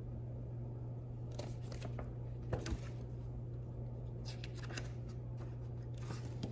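Pages of a picture book being turned and handled: several short spells of paper rustling and flicking, over a steady low hum.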